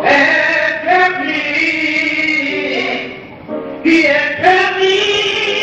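A man singing a slow gospel song unaccompanied, drawing out long held notes, with a short breath about three seconds in.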